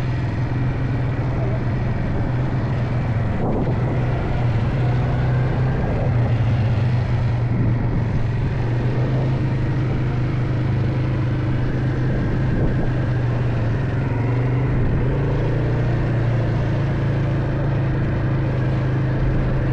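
A motor vehicle's engine running steadily, a constant low drone with no change in pitch.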